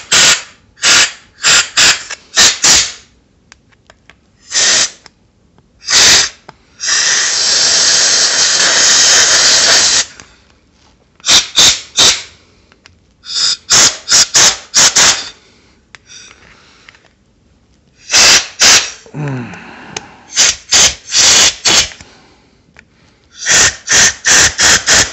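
Compressed air blasting from a handheld blow gun whose nozzle is pushed into a small-engine carburetor's passages, clearing out its airways. It comes in short bursts, in quick groups of two to five, with one long steady blast of about three seconds a few seconds in.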